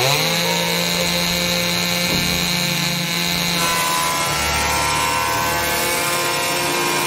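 Electric chainsaw spinning up with a rising whine, then running at a steady pitch as it cuts into a thick vine root.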